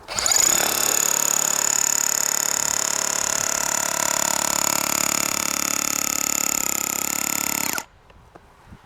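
Makita HR400D cordless hammer drill running under load, a steady loud rattle that builds up over the first half second and cuts off abruptly after about seven and a half seconds.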